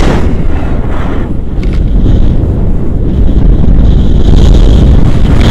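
Wind buffeting an action camera's microphone in tandem paraglider flight: a loud, steady rumble that gets a little louder about four seconds in.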